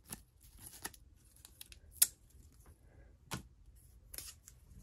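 Paper washi tape being unrolled and torn off its roll by hand: scattered small crackles and clicks, with a sharp snap about two seconds in and another a little over a second later.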